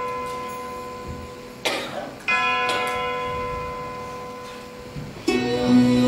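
A bell-like chime struck twice, each stroke ringing on and slowly fading. Near the end, sustained music with a low drone comes in.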